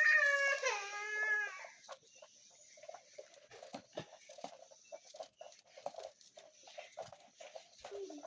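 A cat's long meow that falls in pitch over the first two seconds, followed by faint short calls repeating several times a second, mixed with light clicks.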